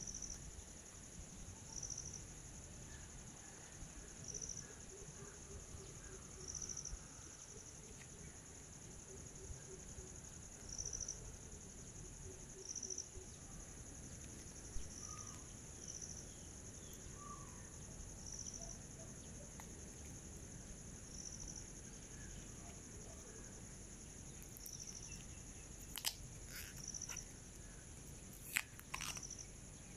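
Insects chirring steadily in the background, with a short high chirp repeating every two seconds or so. Near the end come a few sharp clicks from handling the leather watch strap and its metal buckle.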